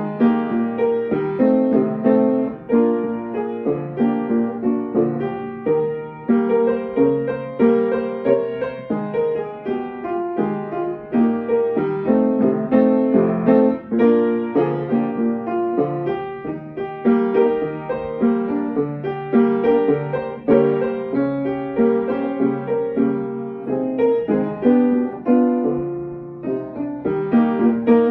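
Upright piano played with both hands: a continuous flowing piece of chords and quick runs of notes.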